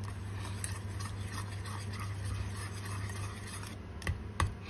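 Wire whisk scraping and stirring around a stainless steel saucepan of softening shea butter, a soft, even rubbing, with a low steady hum underneath. Near the end the whisk knocks the pan twice.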